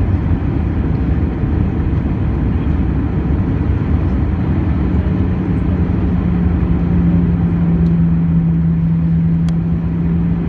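Airbus A319 airliner heard from inside the cabin: a steady roar of engines and rushing air with a deep rumble. A low steady hum joins about four seconds in.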